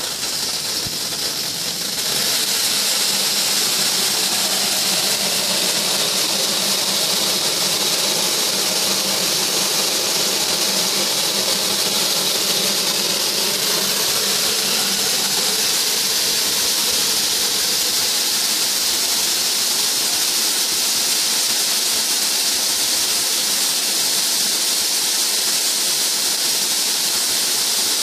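RS256B CCD rice colour sorter running just after being switched on: a loud, steady airy hiss with a faint low hum beneath, stepping up in level about two seconds in.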